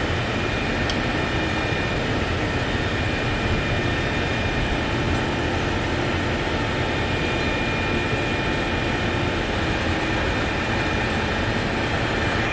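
Crane engine running steadily: a constant drone with faint steady whines over it.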